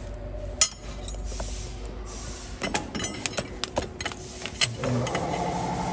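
Sharp metal clicks and taps as a steel rod knocks against parts inside a twin-screw extruder's gearbox. A steady machine hum starts near the end.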